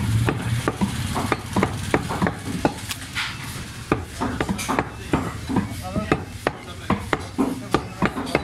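Heavy butcher's cleaver chopping goat meat into pieces on a wooden chopping block: a steady run of sharp chops, about three a second.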